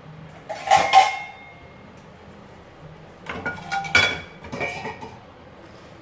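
Pots, pans and dishes being handled and clattering: one loud clatter about a second in, then a run of clinks with short ringing between three and five seconds in.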